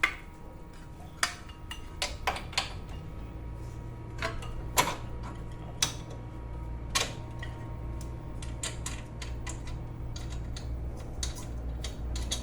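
Metal hand tools and bolts clinking and knocking at irregular intervals while a car's suspension strut is bolted up. A low steady hum comes in about three seconds in.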